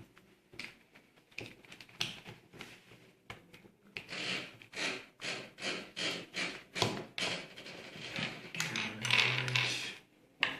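Plastic pieces of a 3×3 Rubik's cube clicking and scraping as they are pressed back into the cube by hand, in an uneven run of short, sharp clicks.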